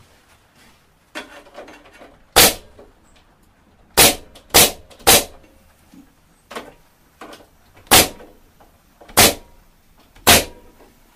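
Delfast pneumatic stapler firing 38 mm, 16-gauge staples into the corner of a wooden Langstroth beehive box: seven sharp shots, three of them in quick succession about four seconds in. Quieter knocks come between the shots as the tool is moved along the joint.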